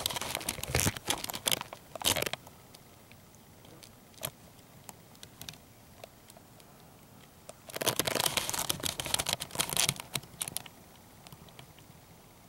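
Crinkling, rustling handling noise on the camera's microphone, in two bouts: one in the first two seconds and another from about eight to ten and a half seconds in. Scattered small clicks fall between the bouts.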